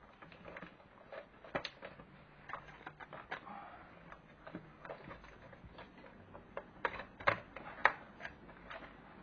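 Irregular clicks and light taps of sheet metal as an LCD panel is handled and pressed down into its metal frame, with the sharpest clicks about seven to eight seconds in.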